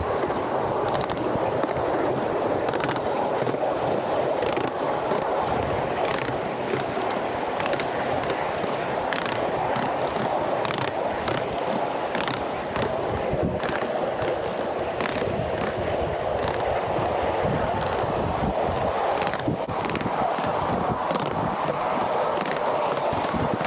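Ride-on miniature train rolling along its track: a steady rumble of wheels on rail, with frequent sharp clicks as the wheels pass over the rail joints.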